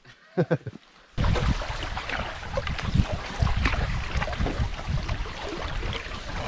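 Wind buffeting the microphone over water splashing and lapping as a canoe is paddled on open water. It starts suddenly about a second in, with irregular small splashes through a steady rumble.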